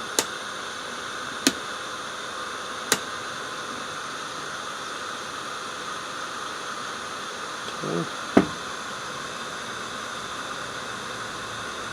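The fan in a hot air rework station's handpiece blowing a steady airy hiss, still running although the unit has been switched off. A few sharp clicks come through it, the last one about eight seconds in.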